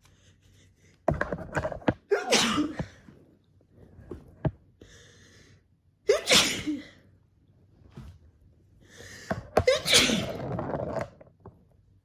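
A person sneezing three times, loudly, about four seconds apart.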